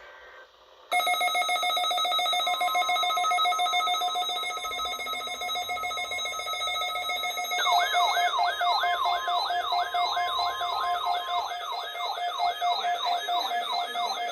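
Several weather radio receivers sound their alert alarms as they pick up a required weekly test broadcast. A loud, steady, pulsing electronic alarm tone starts about a second in. About eight seconds in, a second alarm joins it: a fast, repeating, rising siren-like warble.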